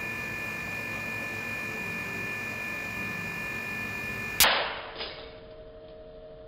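A freezer separating machine running with a steady whine, then, about four and a half seconds in, a sudden sharp crack as the frozen Google Pixel 2 XL display pops loose from its cracked front glass, with a smaller crack about half a second later. A lower, quieter hum runs on after the pop.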